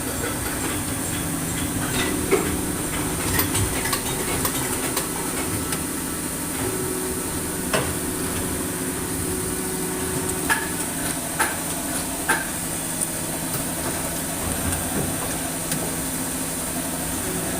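Plastic injection moulding machine running while it makes toy vampire fangs: a steady low hum with a thin high whine over it, and a few sharp clicks and knocks scattered through.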